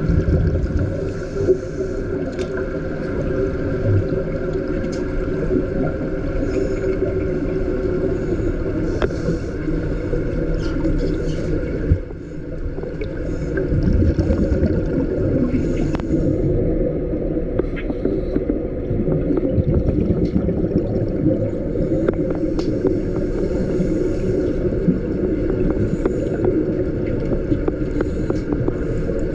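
Underwater recording: a steady low rumble with the bubbling of a scuba diver's exhalations, and scattered light clicks and knocks from gear being handled.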